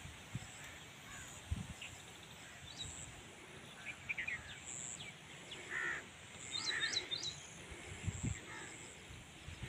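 Birds calling: crows cawing now and then, with a quick run of high chirps from a smaller bird about two-thirds of the way in. A few soft low thumps are heard as well.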